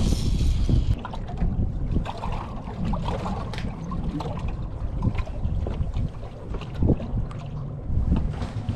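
Wind buffeting the microphone in a steady low rumble, with scattered short knocks and clicks from handling gear in a small boat. There is a brief hiss near the start.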